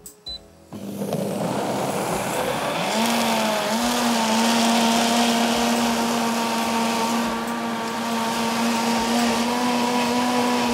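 Countertop blender puréeing cooked celery and potato with vegetable broth into a thick soup. The motor starts about a second in, its whine climbs to a steady pitch a couple of seconds later, and it cuts off suddenly near the end.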